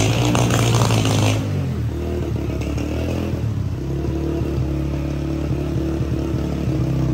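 Motorcycle engine running steadily at low speed as it rides through a flooded street, a low even hum, with a rushing hiss over it for the first second or so.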